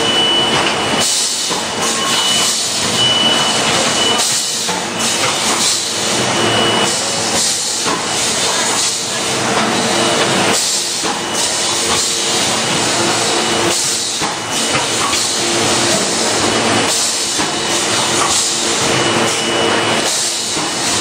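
SP-1220A automatic juice cup filling and sealing machine running, a steady hissing machine noise with irregular short surges and a faint high whine.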